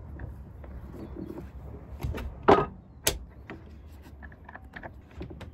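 Several sharp knocks and clunks from anchor gear being handled at a sailboat's bow, the two loudest about two and a half and three seconds in, over a low steady rumble.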